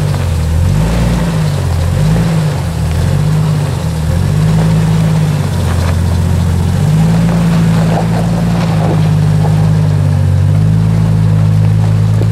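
Modified Jeep Wrangler TJ's engine working as it crawls over rocks off-road, its pitch rising and falling about once a second under throttle blips for the first few seconds, then holding steady.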